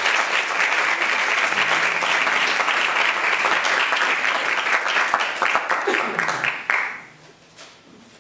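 Applause: many people clapping in a dense, steady patter that dies away sharply about seven seconds in, leaving a few scattered claps.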